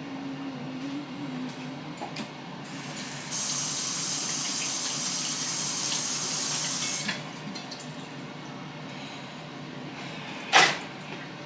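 Kitchen tap running in a steady gush for about four seconds, then shut off. Near the end comes one sharp clack, the loudest sound.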